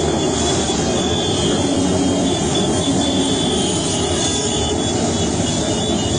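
A large pack of motorcycles riding past together, their many engines blending into one steady, dense drone.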